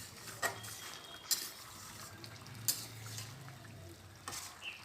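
Curry gravy simmering in a pan on the stove, a faint liquid bubbling with a low steady hum under it and a few short clicks or pops spread through it.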